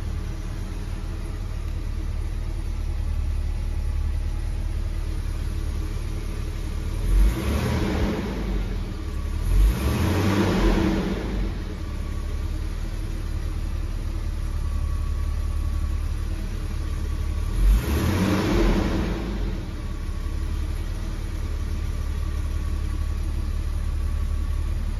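Jaguar XJ6 Series III straight-six idling steadily, heard from inside the cabin, with three brief blips of the throttle: two close together about seven and ten seconds in, and one more near eighteen seconds.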